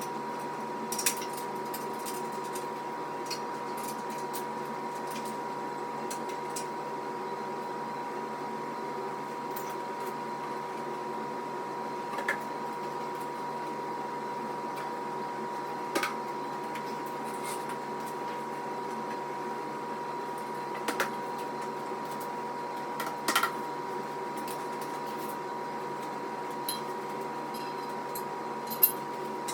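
A steady hum holding one constant tone over a faint hiss, with about half a dozen short clicks and knocks spread through it.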